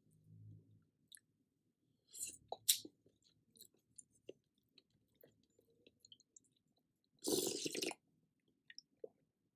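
Close-miked mouth sounds of someone eating spicy seafood noodle soup: chewing, with wet clicks and smacks. A louder noisy burst comes about seven seconds in.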